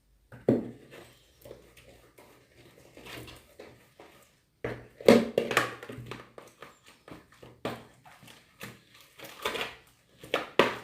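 Thick slime being stirred in a container, the utensil knocking and scraping against the container's sides and bottom in irregular strokes.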